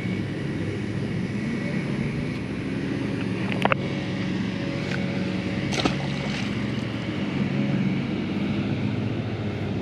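A steady motor hum with an even background rush, with two short sharp clicks about a third and halfway through.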